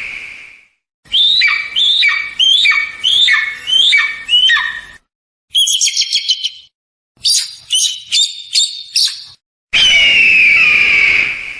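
Eagle calls cut together one after another: a run of about eight piercing cries, each falling in pitch, then two bursts of rapid high-pitched chittering, then a long harsh, slightly falling scream near the end.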